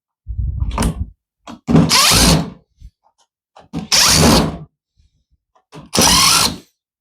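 A power driver backs screws out of a plastic drain pump in four short bursts, each under a second long, with pauses between them.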